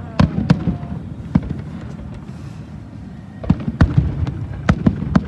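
Fireworks bursting in the finale of a display: a few sharp bangs, a short lull, then a rapid run of bangs from about halfway through.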